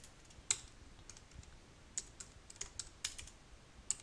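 Computer keyboard being typed on: about a dozen separate key clicks at an uneven pace, as a short command is keyed in.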